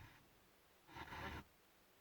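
Near silence: room tone, with a faint brief rustle about a second in.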